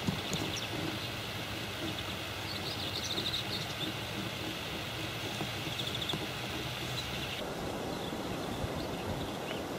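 Steady outdoor background noise with short, high bird chirps twice, about three and six seconds in. The background changes abruptly a little after seven seconds.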